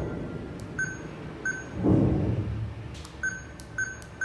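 Smart door lock's touch keypad beeping once per key press as a code is entered: four short, high beeps, two in the first second and a half and two more after three seconds. A muffled low noise swells briefly about two seconds in.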